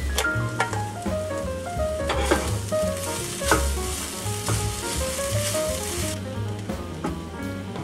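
Sweet potato, bell pepper and quinoa sizzling in a hot stainless steel sauté pan as they are stirred with a wooden spoon, with knocks and scrapes of the spoon against the pan. The sizzle fades about six seconds in.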